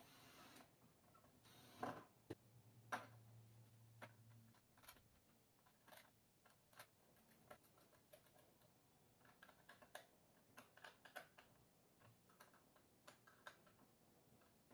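Quiet, scattered clicks and taps of small tools and parts being handled, the sharpest two about two and three seconds in, with a faint low hum for a couple of seconds after the second.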